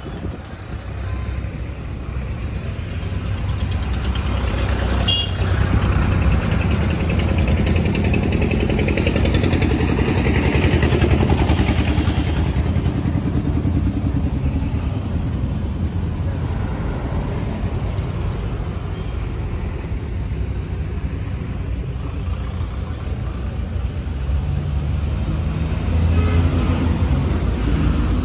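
Tractor diesel engine idling steadily, a low even rumble, a little louder for a few seconds in the middle.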